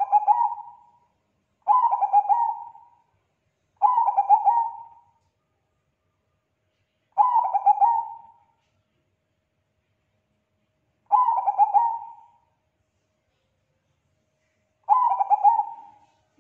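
Zebra dove (perkutut bangkok, a Thai-bred song strain) cooing. It sings six short rolling phrases of rapid notes, each a little over a second long, at gaps of two to four seconds.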